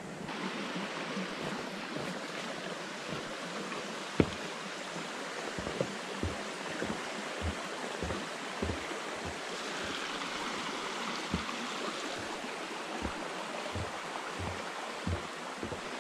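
Steady rush of flowing water near the dam. From about four seconds in, it is joined by a string of dull footsteps, roughly one to two a second.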